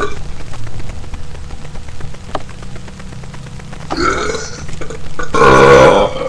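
A young man burping twice: a shorter burp about four seconds in, then a longer, louder burp.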